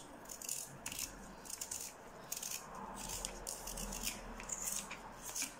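Small kitchen knife peeling a raw Irish Rooster potato: faint, repeated scraping strokes as the blade cuts through the skin, several a second.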